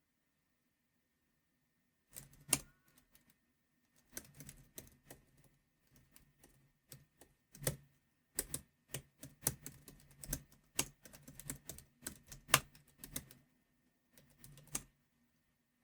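Computer keyboard typed on firmly, keys clicking in irregular runs after about two seconds of silence, with a few much louder single strikes standing out.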